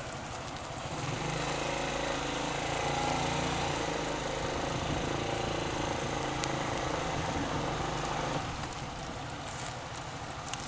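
Motorcycle engine running at low speed during a slow, tight turn. Its note rises under throttle about a second in, holds steady, then eases back near the end.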